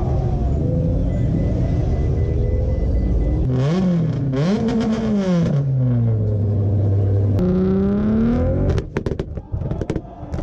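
Tuned car engines being revved hard: the pitch swings up and down in repeated rev sweeps, then near the end a rapid run of sharp exhaust pops and bangs.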